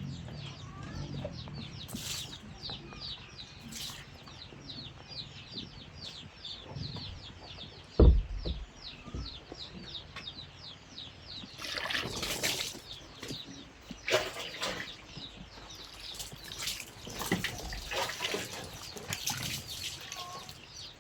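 A bird calling in a fast run of short, high, falling chirps, several a second, for about the first ten seconds. A sharp thump comes about eight seconds in, and from about twelve seconds on there are several spells of rough rustling noise.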